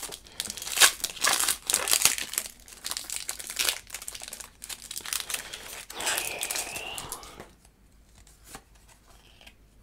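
Foil wrapper of a Pokémon TCG Astral Radiance booster pack being torn open and crinkled in the hands, a dense crackling that dies down to faint rustles after about seven seconds.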